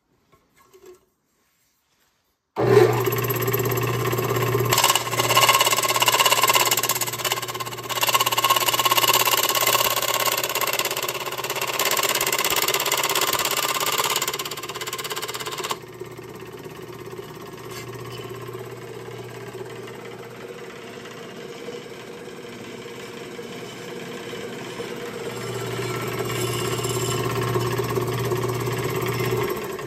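A roughly 1952 Delta Rockwell Homecraft scroll saw starts about three seconds in and runs with a steady motor hum while its blade, the one it came with, cuts through aluminum plate. The cutting is loudest in the first half, drops to quieter running about halfway, builds again, and stops suddenly near the end.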